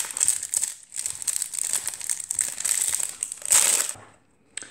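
Foil wrapper of a Pokémon trading-card booster pack crinkling as it is torn open by hand, in dense crackly rustles with a louder crinkle near the end.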